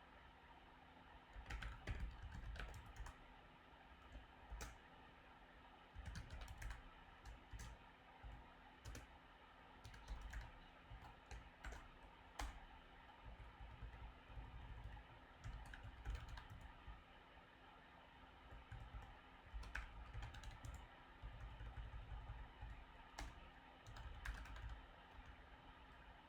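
Typing on a computer keyboard: irregular spurts of key clicks with short pauses between them.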